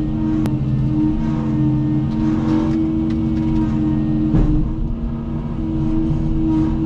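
Cat 310 excavator's diesel engine running steadily, with a sharp click about half a second in and a short knock a little after four seconds.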